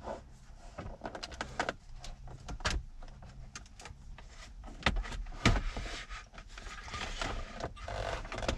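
A car radio being wiggled and pulled out of its dashboard slot: a run of irregular clicks, knocks and rubbing of the unit against the dash, with a couple of louder knocks about five seconds in.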